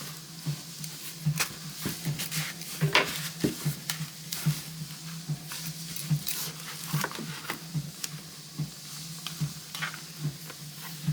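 Hands handling a leather planner cover and a paper notebook being fitted into it: irregular soft taps, clicks and rustles, over a steady low hum.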